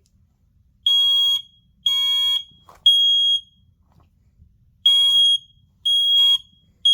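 First Alert SMI100 smoke alarm sounding its test alarm: loud, high-pitched beeps in two rounds of three with a pause between rounds, the temporal-three pattern. The last beep is cut off at the end.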